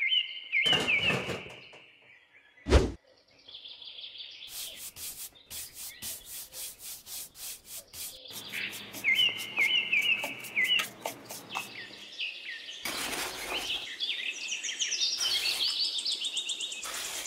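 A stiff paintbrush sweeps sand across a hard plastic tray in quick, repeated scratchy strokes, with birds chirping throughout. There is a dull thud about a second in and a sharp click near three seconds.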